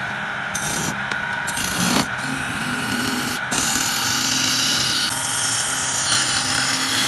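Wood lathe running with a steady motor hum while a tool is held against the spinning wooden bowl. This gives a rasping, scraping hiss that comes in short stretches at first, then runs louder and longer through the second half.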